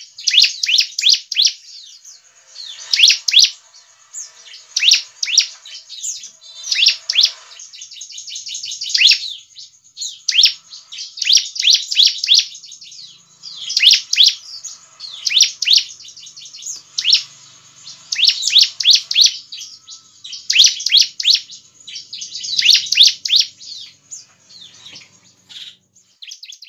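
Ciblek (bar-winged prinia) singing in full song: repeated phrases of rapid, high, sharp chirps, a new phrase every second or two.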